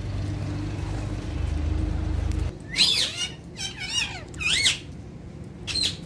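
Alexandrine parakeets giving four or five loud calls, each sweeping up and down in pitch, from about halfway in. Before them a steady low rumble runs and then cuts off abruptly.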